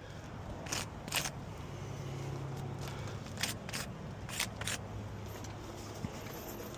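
Scattered short scrapes and taps of handling and stepping on brittle asphalt shingles, about half a dozen light strokes, over a steady low hum.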